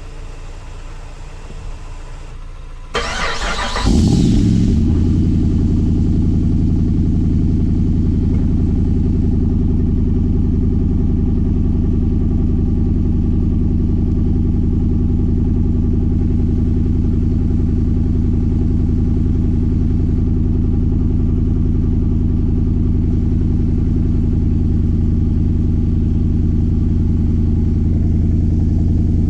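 Freshly rebuilt Hemi V8 of a Jeep Grand Cherokee SRT8 cold-started: about three seconds in the starter turns it over briefly and it fires with a burst, then it settles straight into a steady, loud idle.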